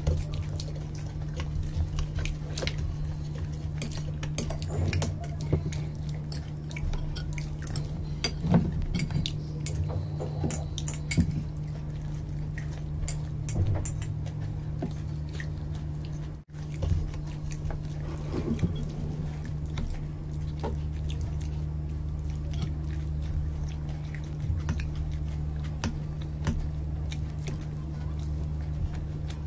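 Close-up eating sounds: chewing and mouth noises with many small clicks of spoons against glass and steel dishes, over a steady low hum.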